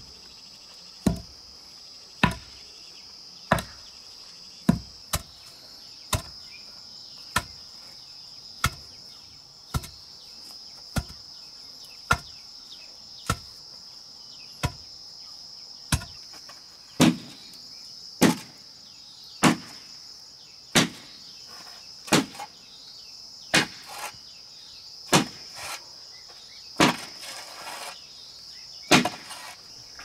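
Steady, evenly spaced blows of a hand tool, roughly one every 1.2 seconds, over a constant high chorus of crickets. A short rasping noise comes near the end.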